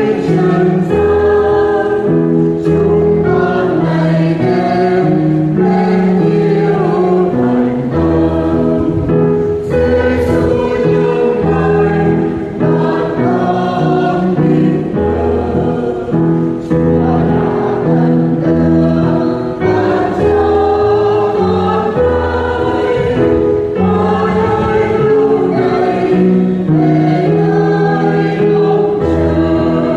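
Choir singing a Vietnamese Catholic hymn to instrumental accompaniment, over a bass line that moves note by note.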